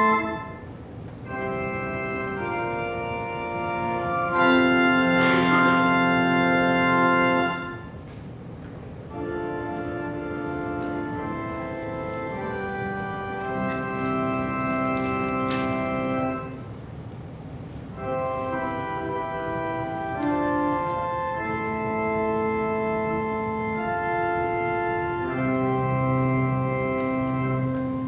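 Pipe organ playing a slow passage of sustained chords, the notes moving every second or so, with short breaks between phrases.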